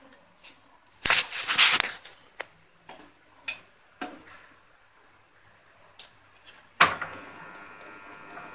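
Handling noises at a workbench as small tool parts are picked up and set down. There is a brief rustling burst about a second in, a few light clicks, then a sharp knock near the end followed by a lingering ringing tone.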